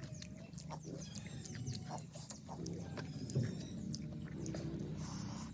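Close-up mouth sounds of someone eating pani puri: scattered crunches, clicks and wet slurping over a steady low hum.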